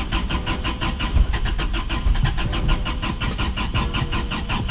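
Toyota Cressida's engine cranking on the starter motor with a steady chugging rhythm of about six pulses a second, not catching. It is being cranked from a portable jump-starter power bank that later proves to be nearly flat.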